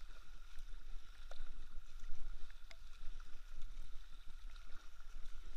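Kayak paddling: paddle blades dipping and splashing, with water rushing along the kayak's bow, over a steady low rumble.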